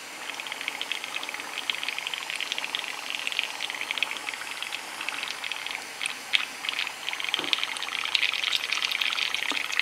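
Airbrush being back-flushed: compressed air forced back through the lacquer thinner in the colour cup, bubbling with a steady fine crackle.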